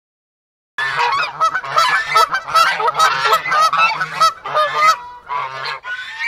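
A flock of geese honking, many rapid overlapping calls, starting about a second in after silence, with a brief lull near the end.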